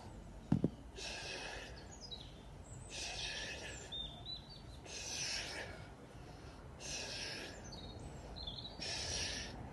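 A man breathing hard during sit-ups: a sharp exhale about every two seconds, in time with each rep. Birds chirp faintly in the background, and there is a brief thump about half a second in.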